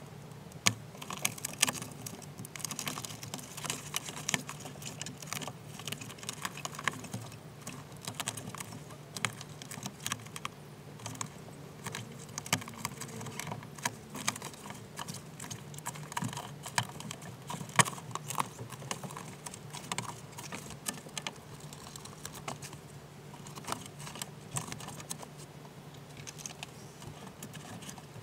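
A dense run of small clicks, taps and crackles from hands working on the exposed inside of a BMW E46 car door: plastic trim, clips and the door's plastic sheet being handled, with a few sharper taps, over a steady low hum.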